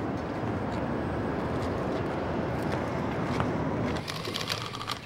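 Steady street noise with traffic, then from about four seconds in a rapid clatter of keys being tapped on a printing adding machine.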